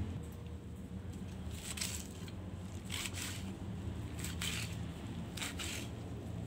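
Knife cutting through crisp napa cabbage leaves on a wooden chopping board: a few separate crunching cuts, roughly a second apart.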